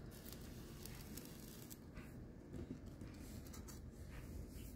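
Faint handling noise: scattered light clicks and rustles over a low, steady room hum.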